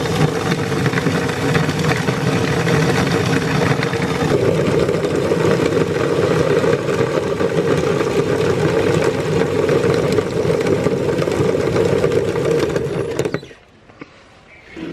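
Electric meat grinder running steadily while grinding plastic beads, then switched off about thirteen seconds in.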